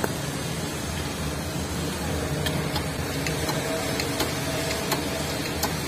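A press running with a steady mechanical hum while it pushes a motorcycle crankshaft's flywheel half down onto the crankpin, with scattered sharp metallic ticks from the parts under load, coming more often in the second half.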